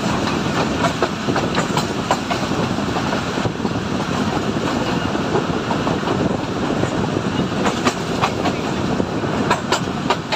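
Pakistan Railways passenger railcar running along the track, heard from on board: a steady rumble of wheels and running gear with irregular clicks from rail joints and points.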